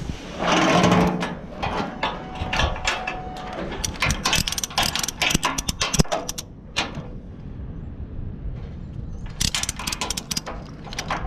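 Ratchet tie-down strap on a car-transporter wheel strap being worked by hand: a louder scrape near the start, then quick runs of metallic ratchet clicks, twice.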